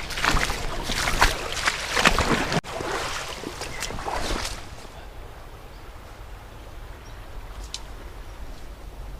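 Crunching and rustling in dry leaf litter and brush, busy for the first four seconds or so, then a quieter steady outdoor hiss with a low rumble.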